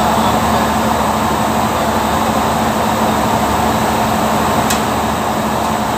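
Steady running of factory machinery: a loud, even noise with a constant low hum, and one brief sharp click about two-thirds of the way through.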